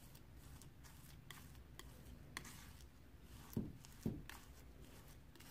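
Steel palette knife scraping and pressing through crumbly frozen acrylic paint on a hard surface: faint, scattered gritty scrapes, with two soft thumps half a second apart a little past halfway.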